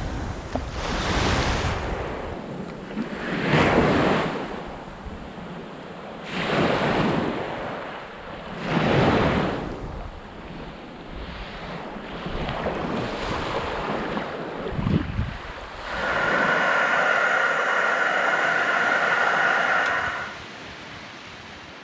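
Surf breaking and washing up a beach in repeated surges every few seconds, with wind on the microphone. Near the end a steadier hiss lasts about four seconds.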